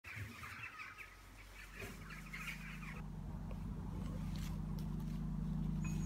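Birds chirping and chattering for about three seconds, while a low, steady music drone fades in and keeps growing louder.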